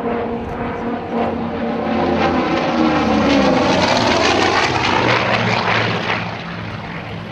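Grumman F7F Tigercat's twin radial engines in a fast pass: the engine note swells to a peak a few seconds in, drops in pitch as the plane goes by, then fades away.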